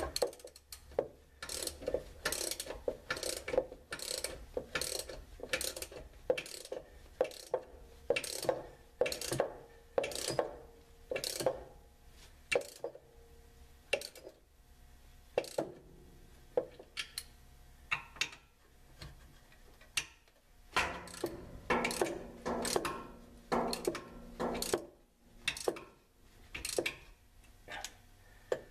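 Ratchet wrench clicking in strokes as bolts are tightened, sharp single clicks about one or two a second with short pauses, and a denser run of clicks about two-thirds of the way through.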